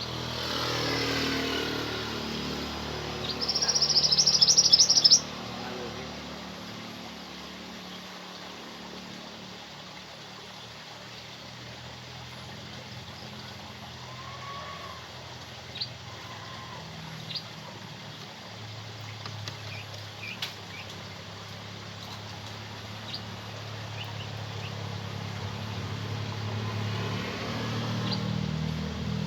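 Kutilang emas bulbul calling: one loud, rapid run of high repeated notes about three seconds in, lasting about two seconds, then a few faint single chirps. Road traffic runs underneath, with a vehicle passing at the start and another coming closer near the end.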